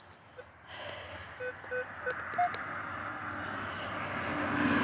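Metal detector sounding short target beeps: three low beeps about a third of a second apart, then one slightly higher. Under them a hissing noise grows louder toward the end.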